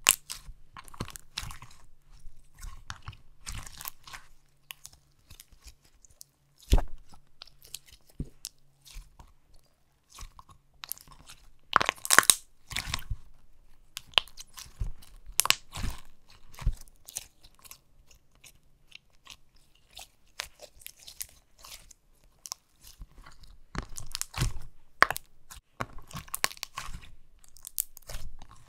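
Thick and glossy slime being squished and kneaded by hand, giving irregular squelches and sharp little pops as trapped air bubbles burst, with a few louder pops near the middle.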